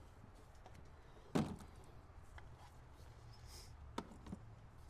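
Work noise from hand tools and parts being handled: one solid knock about a second and a half in, then a sharp click near four seconds and a fainter one just after, over a low steady hum.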